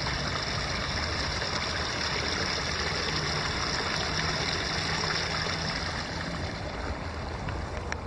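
A small stream running over shallow riffles and a little drop, the water babbling and splashing steadily; a little fainter in the last couple of seconds.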